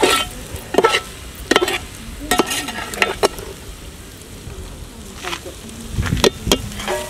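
Slotted metal spoon stirring fusilli in tomato sauce in a large metal pot, scraping and knocking against the pot about ten times with a pause near the middle. The pasta sizzles steadily underneath.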